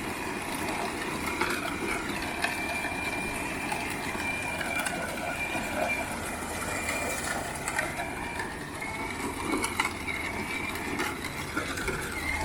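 Child's ride-on toy tractor rolling over rough ground, a steady rumble of wheels with a faint constant whine and occasional light clicks.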